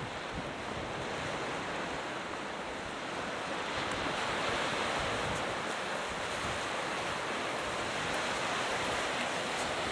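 Small waves breaking and washing onto a sandy beach: a steady hiss of surf that swells a little midway, with wind buffeting the microphone.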